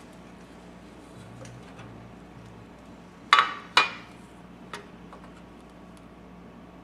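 Two sharp metal clanks about half a second apart, then a lighter tap, as the carburetor cleaner can, its parts basket and the carburetor parts are handled.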